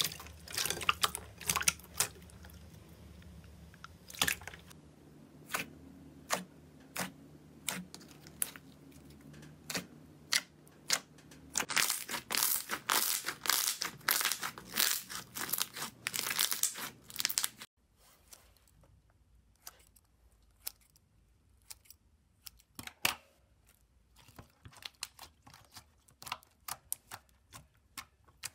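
Hands kneading and squeezing slime, making a stream of sharp, wet pops, clicks and crackles. The sound is densest and loudest just before the middle. About two-thirds of the way through it drops suddenly to a quieter stretch of sparse, soft clicks.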